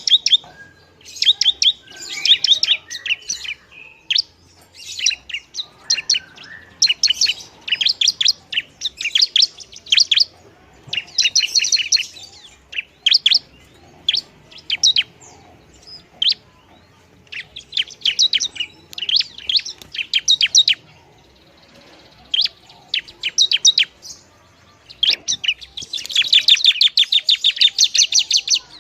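Bar-winged prinia (ciblek) singing: repeated bursts of rapid, high-pitched chirps, each about a second long with short pauses between, and a longer, denser burst near the end.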